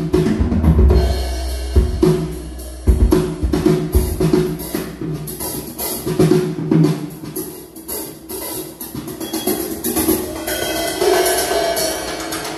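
Drum-kit test track played loud through loudspeakers driven by an RDW NR10004MK3 power amplifier: repeated kick and snare hits over heavy bass.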